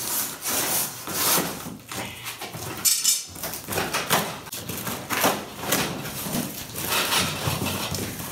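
A long cardboard box being cut open and unpacked: irregular scraping, knocks and rustling of cardboard and plastic-wrapped tent poles, with a short break about three seconds in.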